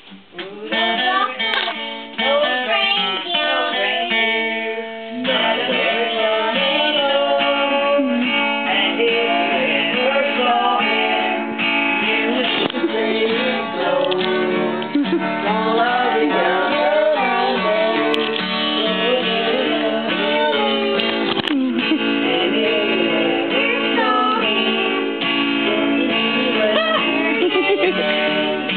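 Acoustic guitar strummed in a steady rhythm, with a young girl singing along. The strumming gets fuller and louder about five seconds in.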